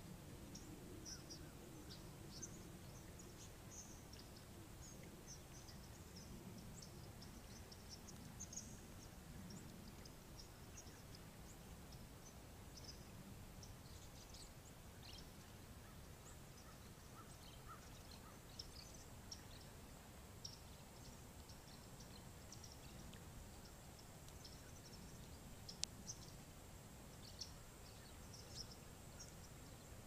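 Faint, scattered high-pitched chirping calls from a large flock of birds flying overhead, with one sharp click near the end.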